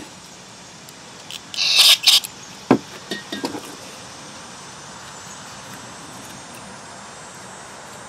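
A short hiss in two quick puffs, like a spray being shot into a small part, followed by a few sharp clicks and knocks of a metal carburetor body and tools being handled. A faint steady hiss of background noise fills the rest.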